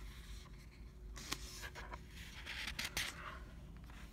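A picture-book page being turned by hand: faint paper rustling and sliding with a couple of light taps, mostly between about one and three seconds in.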